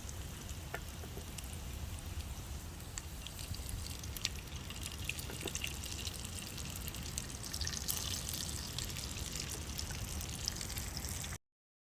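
Garlic fried rice sizzling in a frying pan: a steady hiss with many small crackles, a little busier about eight seconds in, cutting off abruptly near the end.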